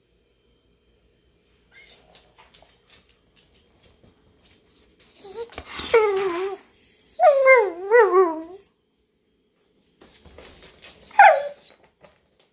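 Blue heeler whining and making drawn-out, wavering-pitched 'talking' vocalizations, begging for a piece of roast beef. There are two long cries in the middle and a short, high whine near the end.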